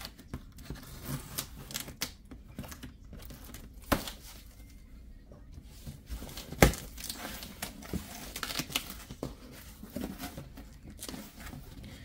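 Packing tape on a cardboard box being cut with scissors and torn, and the box's cardboard flaps handled and pulled open: scattered scraping, tearing and crinkling, with two sharp knocks, the louder one just past halfway.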